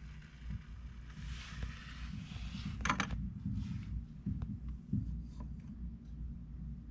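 Handling noise from a handheld camera: a low rumble with irregular bumps, a brief rustle, and a sharp click about three seconds in.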